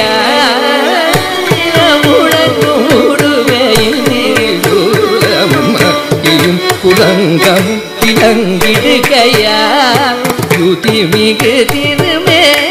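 Carnatic classical music in raga Mohanam set to Adi tala: a melody line full of fast pitch-bending ornaments over rapid, dense drum strokes.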